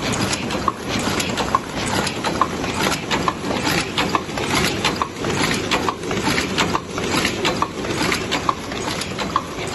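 Koresan KRC70 paper cup forming machine running: a steady mechanical clatter of many clicks, with a short ringing tick about once a second.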